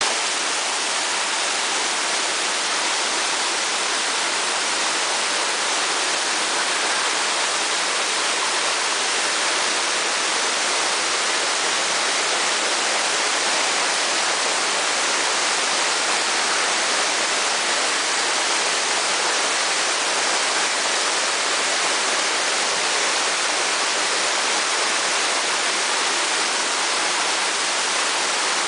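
The Mizuhi Great Falls, a mountain waterfall heard from close range, its water pouring down onto rock in a steady, unbroken rush.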